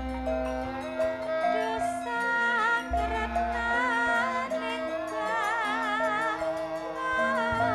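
Javanese gamelan music: held metallophone notes with a wavering melody line on top, from a female sinden singing and a bowed rebab. A deep low note sounds twice, once at the start and again about three seconds in.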